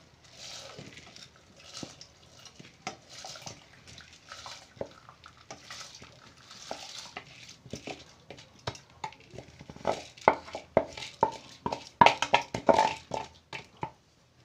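Soaked basmati rice being pushed with a wooden spatula out of a bowl into a pot of boiling water: a hissing rush as the rice slides in, with scrapes and knocks of spatula and bowl. The knocks grow louder and come thick and fast from about ten seconds in.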